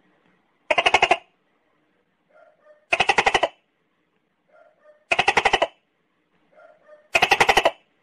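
Tokay gecko calling: four loud calls about two seconds apart, each a rapid run of clicking pulses lasting about half a second, with soft short notes just before each one.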